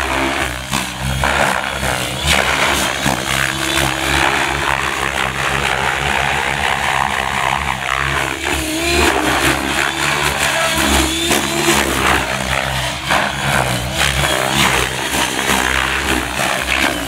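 Gaui X7 RC helicopter flying hard 3D aerobatics at high head speed: the main rotor's steady blade chop and whoosh swells and eases as it flips and tumbles.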